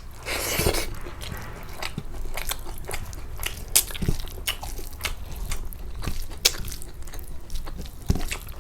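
A person chewing food close to the microphone: a crunchy bite in the first second, then many short wet clicks and crunches of chewing.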